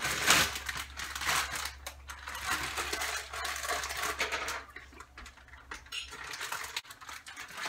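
Plastic zip-top bag rustling and crinkling as chicken breasts are emptied from it into a slow cooker, loud for the first four seconds or so, then quieter with a few light clicks.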